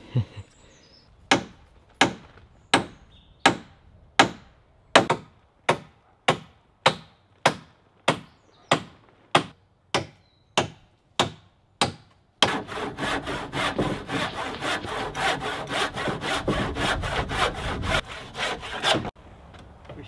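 Handsaw cutting through timber: a long run of slow, even strokes, a little over one a second and gradually quickening. About twelve seconds in, it breaks into fast, continuous sawing for several seconds, then stops abruptly.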